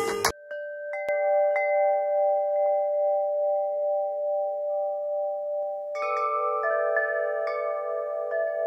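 Struck bell-like chimes ringing with long, steady tones over a silent background, the lowest tone wavering. A few fresh strikes about a second in, then more near six seconds, add higher notes.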